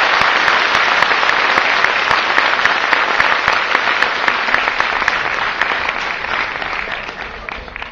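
Theatre audience applauding, a dense steady clapping that fades away over the last couple of seconds.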